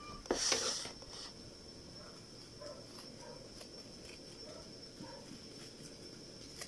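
A kitchen knife scraping the seeds and soft pulp out of a peeled bantiyong gourd, with one louder scrape about half a second in, then faint, scattered scrapes.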